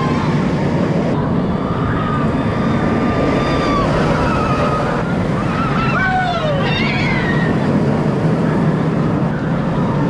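Steady loud background noise with indistinct voices now and then, rising and falling in pitch, most clearly about six to seven seconds in.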